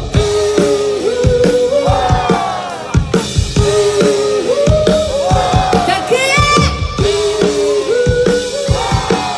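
Rock band playing live at full volume: a drum kit keeps a steady beat with kick and snare under bending pitched instrument or vocal lines.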